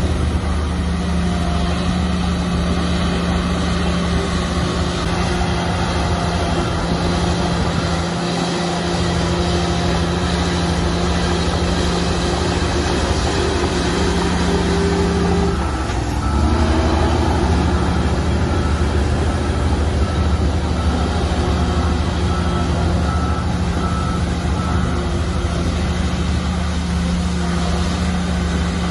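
Heavy construction machinery's diesel engine running steadily under load. About halfway through it drops briefly and then picks up again. A faint reversing alarm beeps at a regular pace through much of it.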